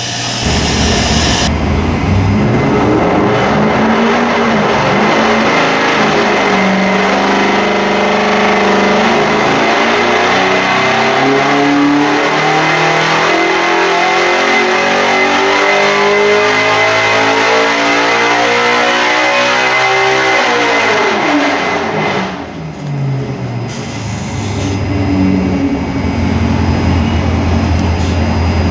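Carbureted 427-cubic-inch LS V8 race engine (Dart LSX block) running on an engine dyno through a full-throttle pull: engine speed climbs steadily for about fifteen seconds, then drops off sharply about twenty seconds in and settles back to a steady idle.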